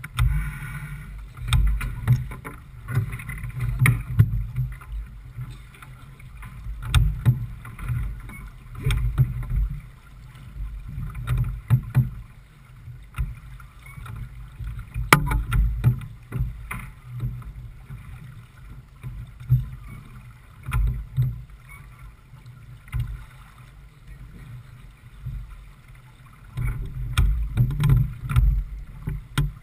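Wind buffeting the microphone and water rushing past the hull of a J/24 keelboat sailing upwind: a low rumble that swells and fades irregularly, with a few sharp knocks.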